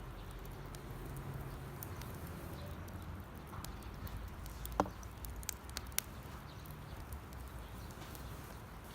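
Campfire of damp firewood crackling, with scattered sharp pops, the loudest a little before the middle; the moisture in the wood makes it pop.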